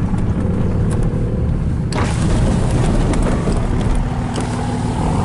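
Steady low rumble of a car, heard from inside the cabin, with one sharp click or knock about two seconds in.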